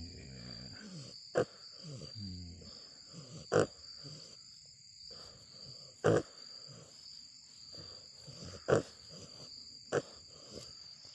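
An animal snoring while standing and being rubbed: low rasping snores at the start and again about two seconds in. Sharp clicks come every two seconds or so, and these are the loudest sounds. A steady high-pitched tone runs underneath.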